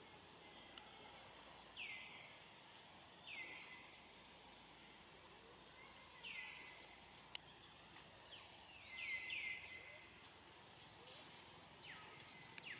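Quiet outdoor ambience with a bird repeating a short, downward-sliding call every few seconds, three in quick succession a little after the middle. A single sharp click about seven seconds in.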